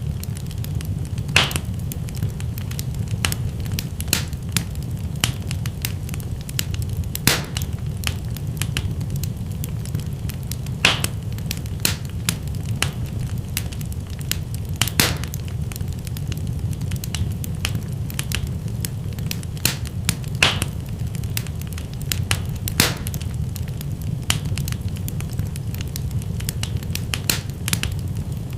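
Wood fire burning in a fireplace: a steady low rumble of the flames with irregular crackles and occasional sharper pops, several a minute louder than the rest.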